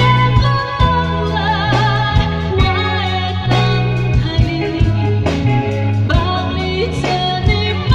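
A woman singing a slow melody with vibrato into a microphone, over a musical accompaniment with a steady bass line and a regular beat.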